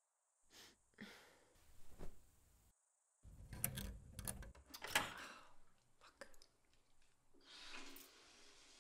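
Wooden wardrobe door being handled and opened: a string of light clicks and knocks, loudest and closest together about four to five seconds in.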